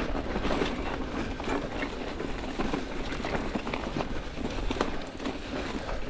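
Mountain bike's Maxxis Forekaster 29-inch knobby tyres rolling over a leaf-covered, frozen singletrack: a steady rush of tyre noise with many sharp crackles from leaves and twigs and the bike rattling over the rough ground.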